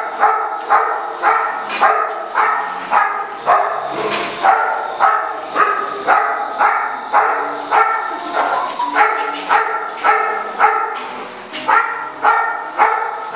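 Dog barking over and over in a steady rhythm of about two barks a second.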